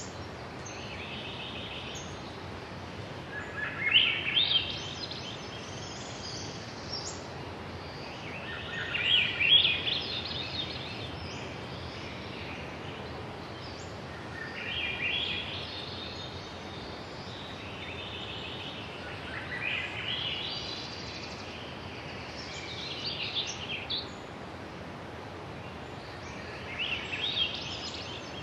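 A songbird singing a short, high-pitched phrase over and over, about every four to five seconds, over a steady hiss of woodland background noise.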